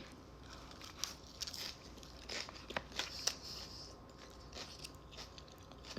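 Close-up chewing of a bite of lettuce salad: faint, irregular crunches and mouth clicks.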